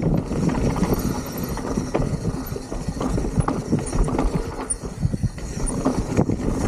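Hardtail mountain bike descending fast over dirt and rock: tyres rolling and crunching on the trail, with the bike rattling and knocking steadily over the bumps and rocks.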